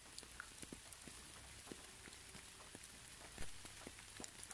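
Rain falling: a faint steady hiss with scattered small drop ticks. One louder drop lands about three and a half seconds in.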